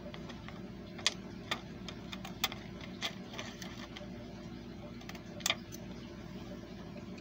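Sharp scissors snipping blue Press-n-Peel transfer paper in a handful of short, irregular cuts, trimming it close to the image, over a steady low hum.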